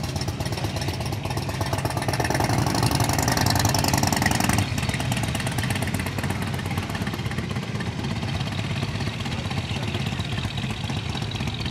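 A vehicle engine idling with a steady low rumble. It grows louder from about two seconds in, then drops back abruptly a little before five seconds.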